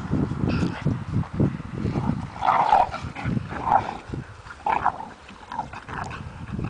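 Dogs barking during rough play. Low scuffling comes first, then about five short barks roughly a second apart from a couple of seconds in.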